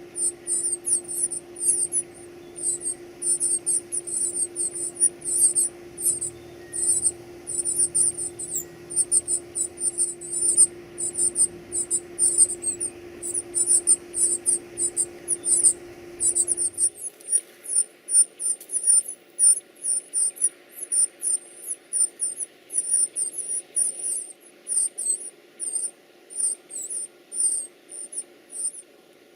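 Nestling birds' begging calls: very high-pitched squeaking in quick runs, about two runs a second, going on and on while being fed.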